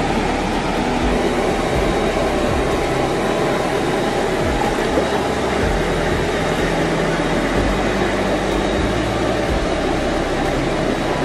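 Steady rushing of flowing water from a river and small waterfall, an even hiss with no breaks.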